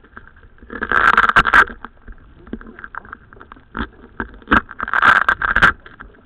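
Handling noise from a camera being fixed in place: two rubbing, scraping bursts of about a second each, one about a second in and one about five seconds in, with scattered knocks and clicks between.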